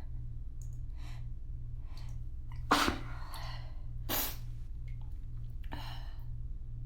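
A woman's sneezing fit: three sudden sneezes, the first about three seconds in and the loudest, then two more a second or so apart, with faint breaths before them. A steady low hum runs underneath.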